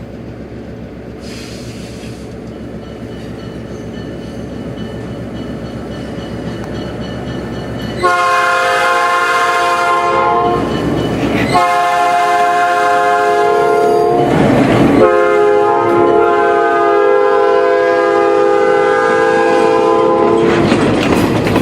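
A diesel locomotive's multi-chime air horn, the horn of the excursion's RS3M, sounds three blasts as the train passes; the last blast is the longest. Before the horn, the rumble of the approaching locomotive grows steadily louder.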